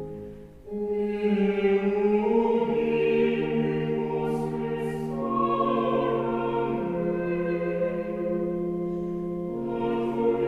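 Voices singing slow, sustained chords in several parts, each chord held for two or three seconds before moving to the next.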